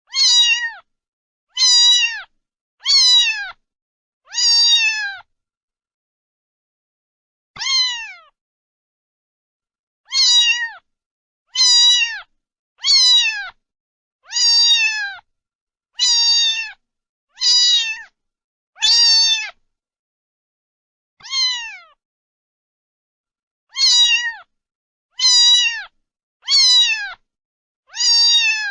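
A cat meowing over and over, about seventeen meows of under a second each. Each meow is high-pitched and falls at the end, with short silent gaps between them and two longer pauses.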